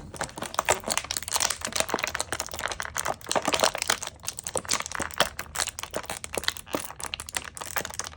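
Plastic packaging crinkling and crackling in the hands, with many quick small clicks, as an action figure and its accessory are taken out of the pack.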